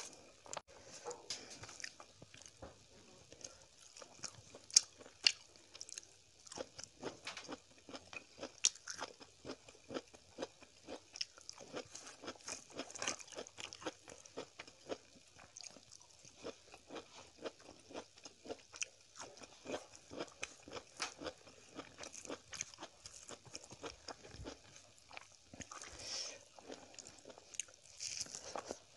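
A person eating close to the microphone: steady chewing and crunching of food with many small irregular clicks, and two louder sharp clicks about five seconds in.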